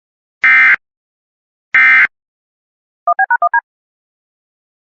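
Emergency Alert System SAME digital data bursts, the end-of-message signal: two short raspy bursts about a second apart, the last of a set of three. About three seconds in comes a fast run of six touch-tone (DTMF) beeps.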